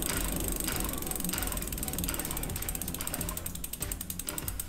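A spinning mountain bike rear wheel: the freehub clicking steadily while the bent disc brake rotor rubs against the brake pads on each turn, which makes the wheel slow down. The rubbing is the sign of a warped rotor, not a misaligned caliper.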